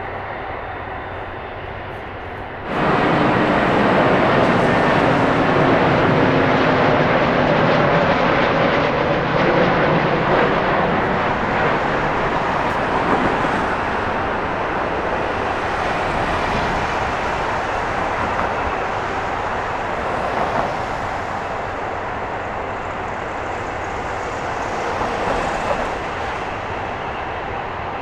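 Jet airliner engine noise: a loud, even roar that comes in suddenly about three seconds in and slowly eases off, over a steadier background rumble before it.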